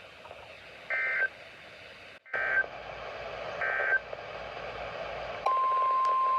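Emergency Alert System data bursts from a NOAA Weather Radio broadcast: three short warbling digital bursts about a second and a half apart. About five and a half seconds in, the steady single-pitch 1050 Hz warning alarm tone starts, signalling a new weather warning.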